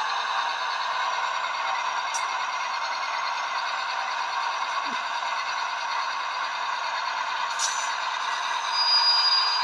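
Sound-equipped model of an NR class diesel locomotive, its onboard sound decoder playing diesel engine sound through a tiny speaker as it runs on DC power. The sound is steady and thin, with no bass. Two brief high chirps come about 2 and 7.5 seconds in, and a short high tone sounds near the end.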